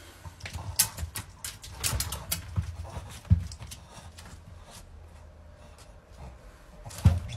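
A Boston terrier moving about at a glass door: scattered small clicks and taps, busiest in the first few seconds, then quieter while it sits. A sharp knock comes near the end.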